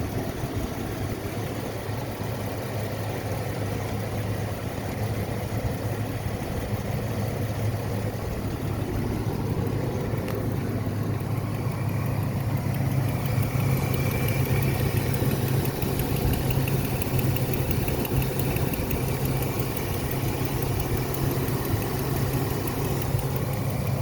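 Engine idling steadily with a fast, even clicking running through it, the clicking noise the owner is trying to identify.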